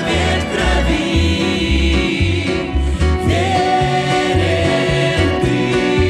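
A mixed group of men and women singing a Russian-language hymn in harmony. They are accompanied by acoustic guitar, double bass and violin, with a steady bass line underneath.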